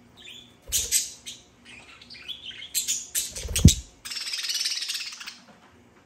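Budgerigar chirping in short calls, a loud thump a little past halfway as the bird lands on the perch, then about a second of rapid chattering warble.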